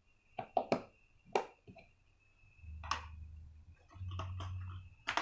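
Sharp clicks and taps of a screwdriver and hands working on a laptop's plastic casing while it is being taken apart, with two low hums about a second long in the second half.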